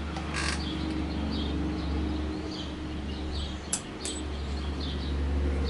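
Small birds chirping again and again over a low steady hum. A short rustle comes about half a second in, and two light clicks come near the middle as the motorcycle's throttle grip is handled.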